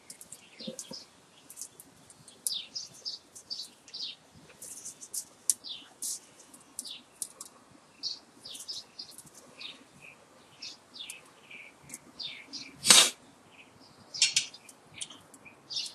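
Copper magnet wire scraping and rustling as it is worked by hand into the slots of an electric motor stator: many short, scratchy, high sounds in an irregular run, with one sharp knock about thirteen seconds in.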